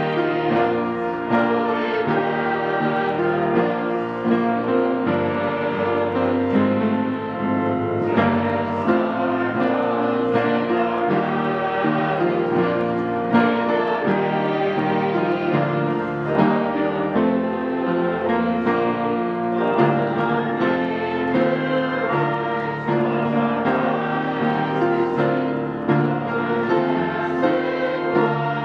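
Congregation singing a hymn together with piano accompaniment.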